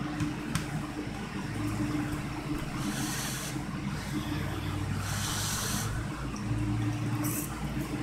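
Person eating instant ramen noodles with a fork: the fork twirls noodles in a plastic container and the noodles are slurped in, with short hissy sucks about three seconds in, between five and six seconds, and briefly near the end. A steady low hum runs underneath.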